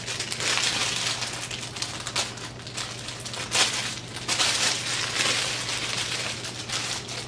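Clear plastic packaging around a bundle of hair crinkling and rustling as it is handled, in irregular crackles. A steady low hum runs underneath.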